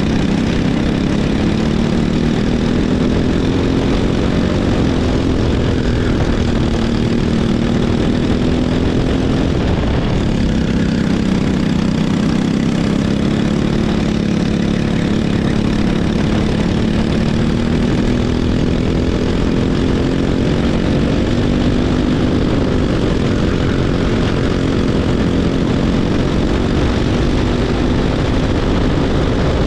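Racing go-kart engine heard onboard under hard throttle, its pitch climbing slowly, falling sharply about ten seconds in, then climbing again with a smaller dip about two-thirds of the way through.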